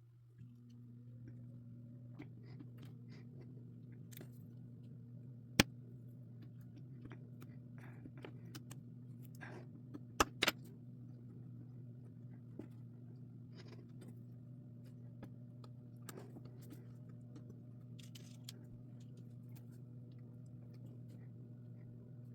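Faint clicks and small snaps of jumper wires being handled and pushed into a breadboard, with three sharper clicks about five and a half seconds in and twice around ten seconds in, over a steady low hum.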